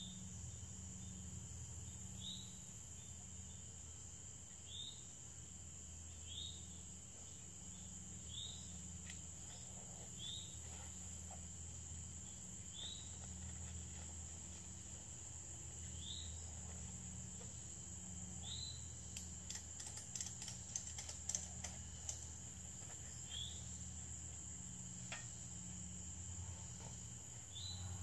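A steady high drone of crickets and other insects in summer woods, with a short high chirp repeating every two seconds or so. About two-thirds of the way through comes a cluster of sharp clicks and knocks.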